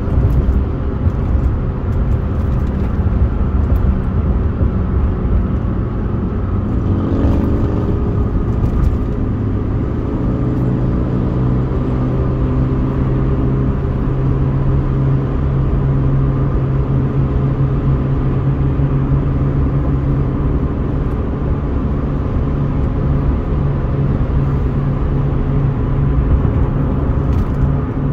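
Car driving at highway speed: steady tyre and road noise with a constant engine hum. About seven seconds in there is a brief rising and falling change in pitch.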